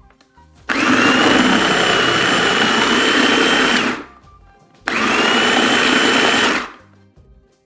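Small electric food processor run in two bursts, about three seconds and then just under two, chopping onion, tomato and peppers into a paste: a steady motor whine over the noise of the blades and vegetables, each burst starting and stopping abruptly.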